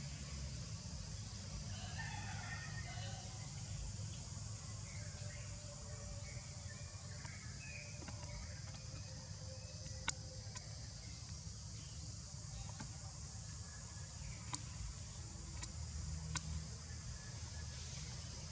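Outdoor tree-canopy ambience: a steady high hiss over a low rumble. Faint chirping animal calls come between about two and eight seconds in, and a few sharp clicks come later.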